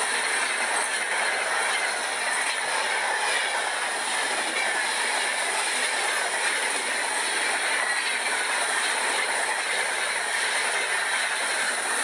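Several Centy toy trains running together on plastic track: a steady whir of their small motors and the rattle of wheels, with faint whines drifting slowly in pitch.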